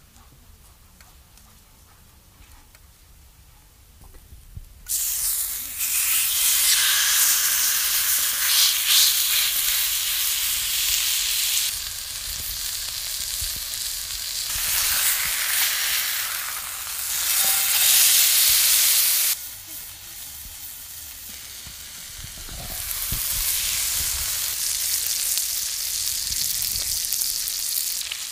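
A few quiet seconds, then a steak sizzling loudly in a hot black pan, starting suddenly about five seconds in. The frying hiss runs on with sudden jumps in level, and near the end butter foams and bubbles around the steak.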